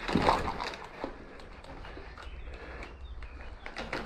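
Footsteps scuffing and crunching on a dirt and broken-brick floor, heaviest in the first half second, then lighter scattered steps. Faint bird chirps about three seconds in.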